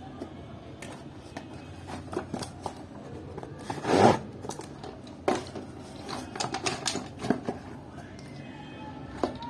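Packaging being handled and opened to unbox a small flexible tripod: irregular rustling and crinkling with scattered clicks, loudest in a burst of rustling about four seconds in.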